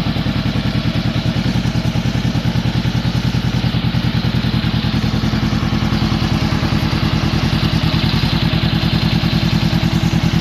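Engine idling steadily through its exhaust pipe, a soft, mellow note made of even, regular pulses.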